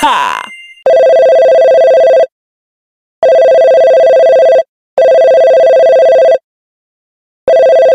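A short electronic sound effect with falling pitch, then a phone ringtone: a loud, steady two-tone electronic ring in four bursts of about a second and a half each.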